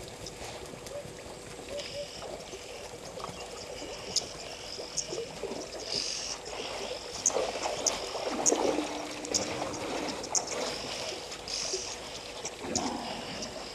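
African elephants drinking at a waterhole: water splashing, sloshing and dribbling as they draw it up and release it with their trunks, with scattered sharp splashes that are busiest about halfway through.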